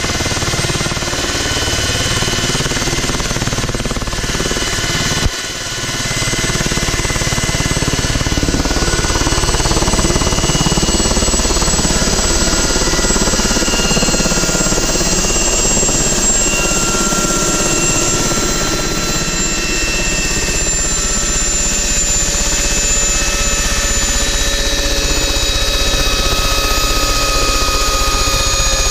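Ultrasport 496 light helicopter running on the ground with its rotors turning: a steady engine and rotor drone with several whining tones that drift in pitch. A single sharp click about five seconds in.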